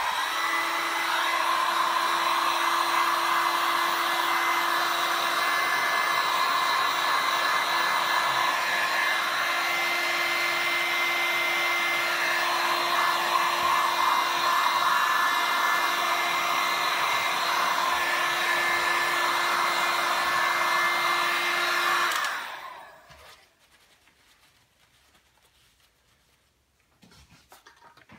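Handheld heat gun blowing steadily over wet resin to pop surface bubbles, a rushing fan with a steady hum and a higher whine. About 22 seconds in it is switched off and spins down.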